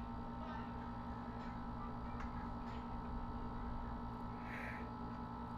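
Charcoal peel-off mask being slowly pulled away from facial skin, giving a few faint ticks over a steady low background hum.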